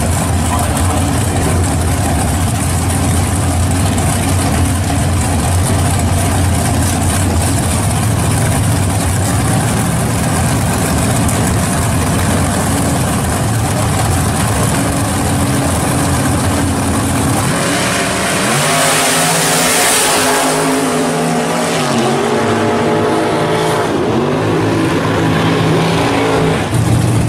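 Two drag-race cars' engines run with a loud, steady low rumble while staged at the starting line. About 17 seconds in they launch, and the engine note climbs and drops several times with the gear changes as the cars run away down the strip.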